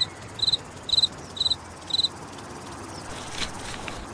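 Cricket chirping sound effect: short trilled chirps about twice a second, five of them, stopping about two seconds in, over a steady hiss of outdoor ambience. It is the cartoon 'crickets' gag for a silence where nobody answers.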